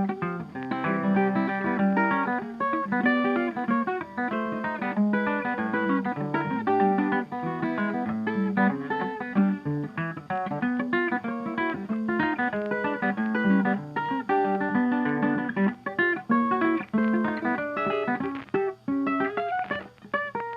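Background music played on guitar, a busy run of quickly plucked and strummed notes.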